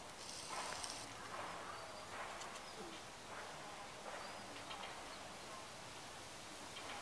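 Faint outdoor background of distant voices murmuring, with a few short bird chirps and a brief hiss near the start.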